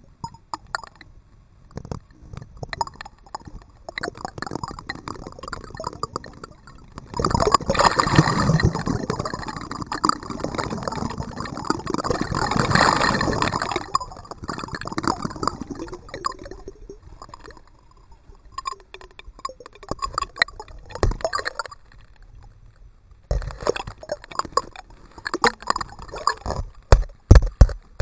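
Kayak paddle splashing and water dripping and gurgling, in irregular splashes. A louder, denser rush of water runs for several seconds about a quarter of the way in.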